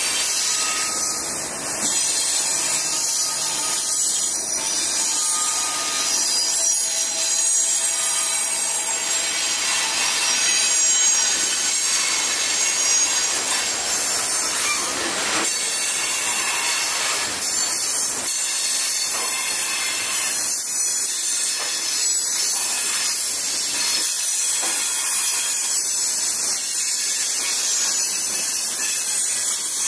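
Freight cars of a Norfolk Southern manifest train rolling steadily past: a constant hissing clatter of steel wheels on the rails, with faint wheel squeal in the first few seconds.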